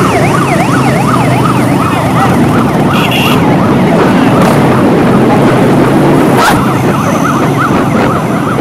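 Several police escort sirens in a fast up-and-down yelp, overlapping one another, over the steady running of many motorcycle and car engines.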